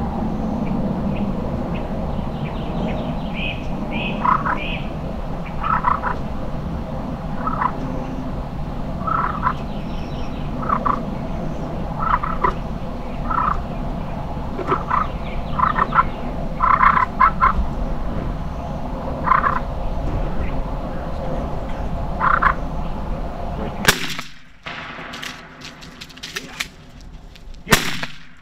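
A series of short, repeated animal calls, roughly one a second, over a steady low rumble. Near the end the rumble drops away and there are two sharp cracks.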